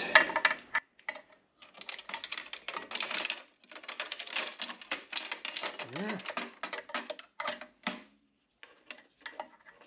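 Small metallic clicks and taps, in quick irregular runs, as a DRO scale and its end brackets are handled and knocked against a mini lathe's steel bed, with a brief pause near the end.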